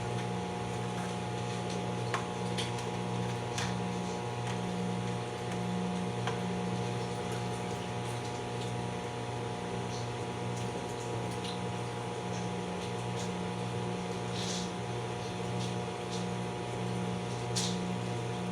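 Microwave oven running with a steady hum while popcorn pops inside, with sparse single pops every second or two.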